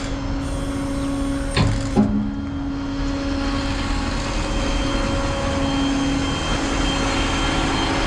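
Steady engine drone with a constant low hum, broken by two short clicks about a second and a half and two seconds in.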